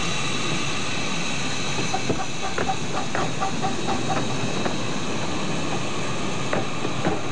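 A 10.25-inch gauge 2-4-2T steam tank locomotive and its carriages running past, with a steady hiss of steam and irregular clicks from the wheels on the track.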